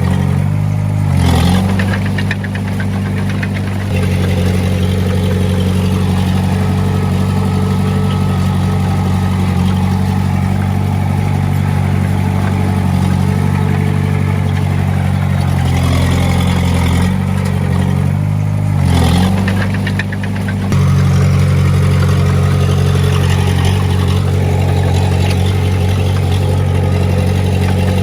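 Heavy-equipment diesel engine running steadily under way, its pitch shifting briefly about a second in and again about two-thirds of the way through.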